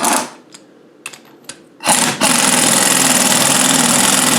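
Air-powered wrench winding in the bolt of a drop-arm puller to press the drop arm off a Rover power steering box. It gives a brief blip at the start, then runs steadily from about two seconds in.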